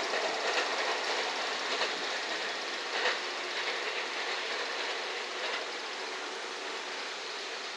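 A container freight train rolling away on the Sanyo Main Line, its steady wheel-on-rail rumble fading, with a few faint clacks over rail joints.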